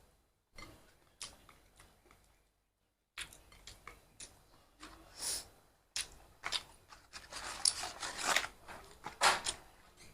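Close-miked eating: chewing and mouth noises with short clicks and scrapes, in scattered bursts, and a fully silent gap about two to three seconds in.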